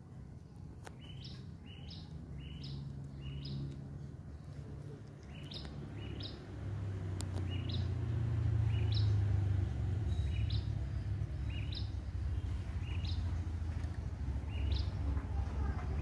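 Budgerigar giving short rising chirps: a quick run of four about a second in, then single chirps every second or so. A low rumble comes in around the middle.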